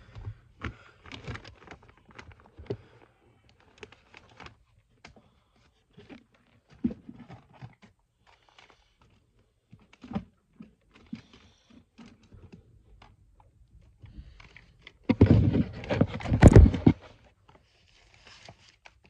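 Rummaging and handling noise: scattered clicks, taps and knocks of objects being picked up and moved, likely plastic disc cases, with a loud stretch of rubbing and bumping about fifteen seconds in that lasts roughly two seconds.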